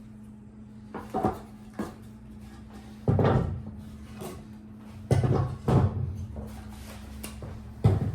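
Knocks, thuds and bumps of a large shipping box being opened and its heavy contents handled, loudest about three and five seconds in. A faint steady low hum runs underneath.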